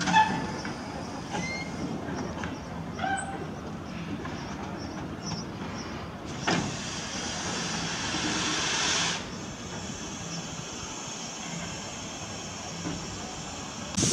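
Henbury, a Peckett saddle-tank steam locomotive, working slowly with a rake of wagons: a few short squeaks in the first few seconds, then steam hissing for about three seconds, starting about six and a half seconds in.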